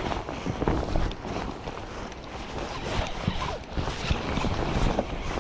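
Rustling and scraping of a rain-jacket sleeve rubbing over a chest-mounted camera while the angler cranks a spinning reel to bring in a hooked fish, with irregular small clicks and knocks.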